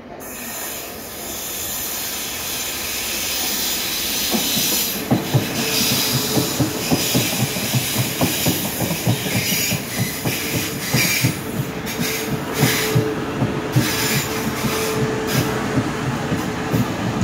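South Western Railway Class 450 Desiro electric multiple unit running into the platform. It grows louder over the first few seconds, then its wheels click steadily over the rail joints under a steady whine and a hiss.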